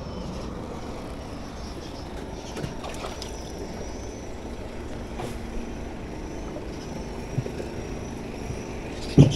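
Steady hum of a running motor, with a few light clicks and knocks from baiting the hook and handling the fishing line, and one loud thump just before the end.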